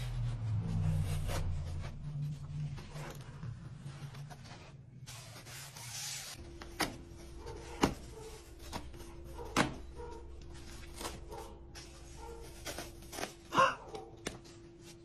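A foam-lined hard-shell carrying case being handled and opened: scattered clicks and knocks from its latches and lid, the loudest near the end. A faint low hum runs under the first half and gives way to a faint steady tone about six seconds in.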